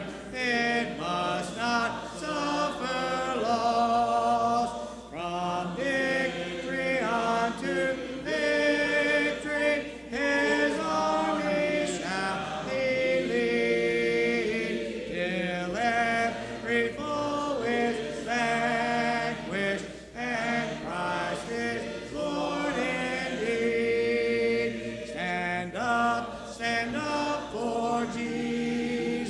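Congregation singing a hymn a cappella in harmony, with no instruments, following a male song leader's lead.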